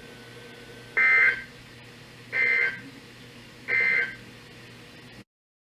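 Emergency Alert System end-of-message data bursts: three short, identical two-tone digital chirps a little over a second apart, the coded signal that closes an alert broadcast. The audio then cuts off to silence.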